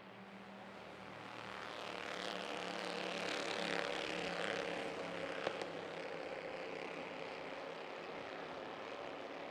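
Bandolero race cars' engines running hard as the pack passes. The sound grows louder over the first few seconds and then holds steady, with one sharp knock about five and a half seconds in.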